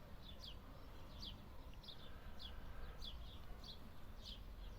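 Small birds chirping: short, high, falling notes repeated irregularly a few times a second, over a low steady rumble.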